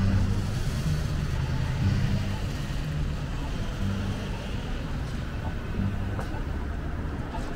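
City street ambience dominated by a steady low rumble of vehicle traffic.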